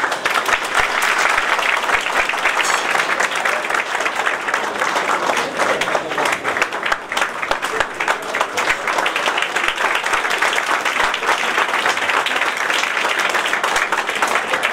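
A roomful of people applauding, steady dense clapping that breaks out suddenly.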